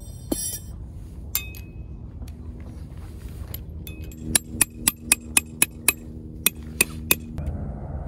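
A metal peg hammer driving a tent peg into hard ground: about ten sharp, ringing metal strikes starting about four seconds in, roughly four a second and then a little slower. A couple of single metallic clinks come earlier.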